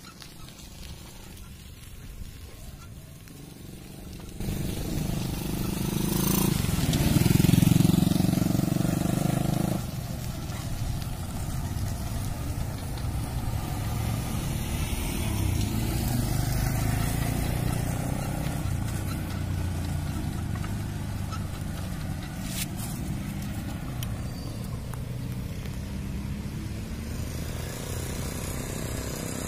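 Motor vehicle engine and road noise. It starts suddenly about four seconds in, is loudest a few seconds later as a vehicle comes close, then settles to a steady running sound.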